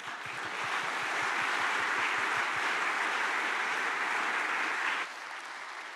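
Audience applauding in a hall, swelling in quickly and holding steady, then dropping off sharply about five seconds in to a faint tail.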